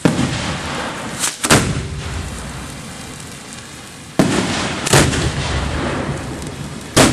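Aerial firework shells firing from ground mortars, a series of sharp booms each trailed by a rumbling echo. There is one at the start, two in quick succession about a second and a half in, two more around four to five seconds, and another near the end.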